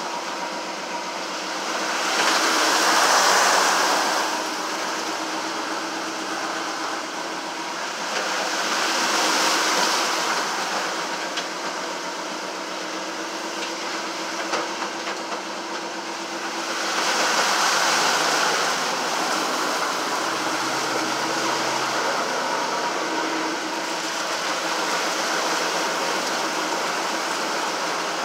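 A vehicle's engine running steadily, heard from inside the cab, as it drives through floodwater. Water rushes and splashes against the vehicle in surges, swelling three times: about three seconds in, about nine seconds in, and about eighteen seconds in.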